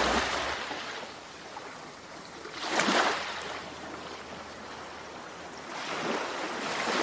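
Ocean surf: waves washing in and drawing back in slow swells, the strongest about three seconds in and another building near the end.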